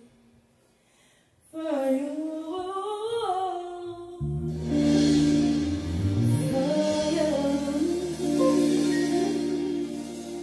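Live R&B ballad: after a brief near-silent pause, a woman sings an unaccompanied phrase with sliding, ornamented pitch. About four seconds in the band comes back in with low held chords, and she sings on over it.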